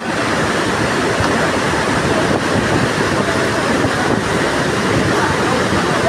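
Bharachukki Falls in heavy flow: a steady, loud rush of falling water with no break or change.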